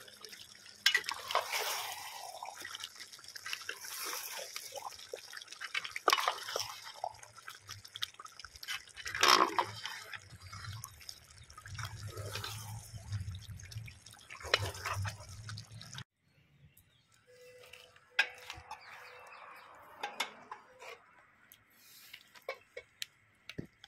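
A big aluminium pot of beef curry bubbling as it simmers, with a ladle clinking in it now and then. About two-thirds through it cuts off suddenly to a much quieter stretch of scattered soft clicks.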